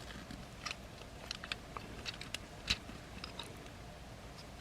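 Plastic parts of a Transformers Legacy Menasor combiner figure clicking and tapping as they are folded and pegged into place by hand. There are scattered, irregular small clicks, with one louder click a little past halfway.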